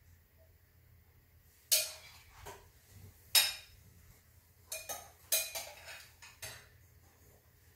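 A metal spoon clinking and scraping against a skillet while sweet potato stuffing is spread around the pan: about half a dozen separate sharp clinks, the loudest about three and a half seconds in.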